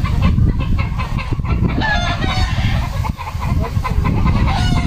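Chickens calling, with a rooster crowing and hens clucking in short repeated calls.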